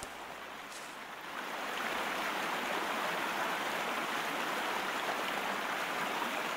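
River water rushing over shallow rapids, a steady rush that grows louder about a second and a half in.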